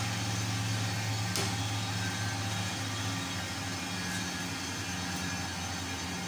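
Steady low machine hum with a faint click about a second and a half in.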